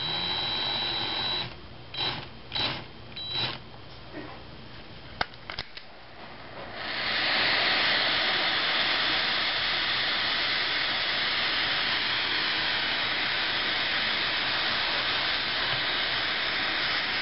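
A cordless drill whirs in a few short spurts. From about seven seconds in, a butane mini-torch hisses steadily as its flame heats the solder holding the wheel's axle nail.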